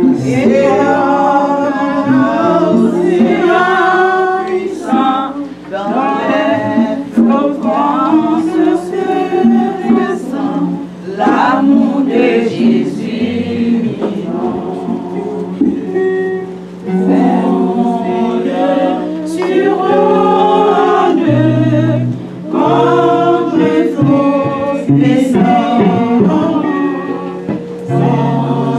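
Choir singing a gospel hymn in several voices, phrase after phrase with brief breaths between, over a steady low sustained note.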